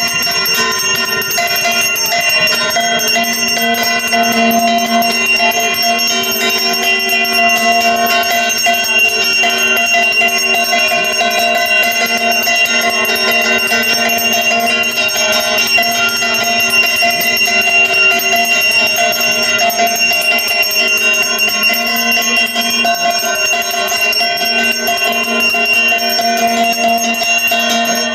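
Brass puja hand bell (ghanta) rung continuously during the offering, a steady ringing with many overlapping tones.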